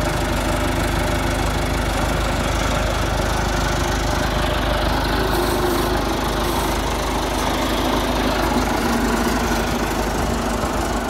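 John Deere 2640's three-cylinder diesel engine running steadily as the tractor is driven slowly on gravel.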